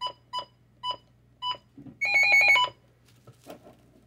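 Midland WR-100 weather radios beeping at each button press: four short single beeps, then about two seconds in a louder, half-second warbling trill of several tones.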